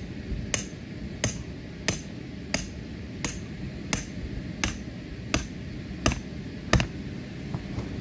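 Club hammer driving a metal ground stake into lawn: about ten sharp strikes at an even pace, one every 0.7 seconds or so, stopping near the end.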